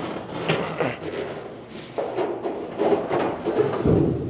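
Irregular knocks, bumps and scraping as a steel truck hood is handled, turned over and set down upside down on a trash can.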